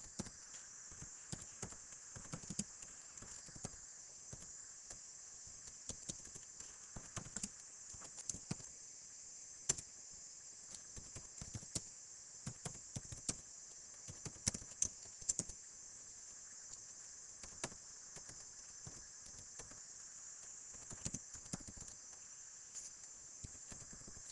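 Computer keyboard keys being typed in short irregular runs of faint clicks, over a steady high-pitched hiss.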